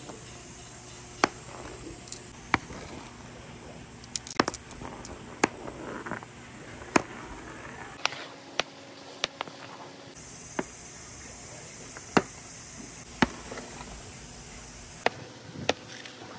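Glass marbles clicking as they are set down one by one into rows on a pegboard: sharp, single clicks at irregular intervals, roughly one a second, over a faint steady background.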